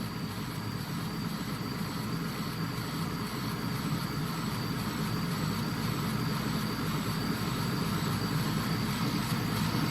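CO2 laser engraving machine running while it marks a logo into bamboo: a steady mechanical whir from the machine's fans and motors, with a faint regular pulse about twice a second, growing slowly louder.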